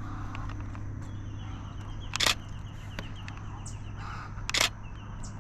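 Canon Rebel T7i DSLR shutter firing twice, about two seconds apart, as the photographer shoots birds.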